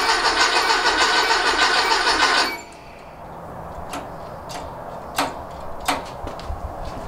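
Rebuilt VW 1835cc air-cooled flat-four turning over steadily on its starter without catching, stopping about two and a half seconds in; the engine has no spark yet. A few sharp clicks follow.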